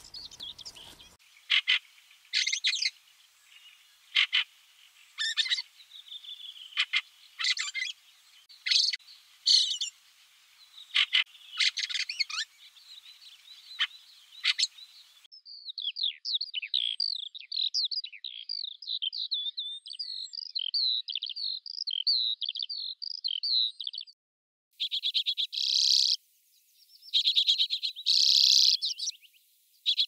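Small songbirds in succession: a booted warbler giving short separate calls about once a second, then a fast unbroken chattering warble for about nine seconds, then bursts of trilled calls typical of a common redpoll near the end.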